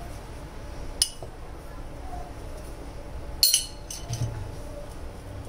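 A spoon knocking against dishes while salt is added to a clay pot: a small tap about a second in and a louder clink about three and a half seconds in.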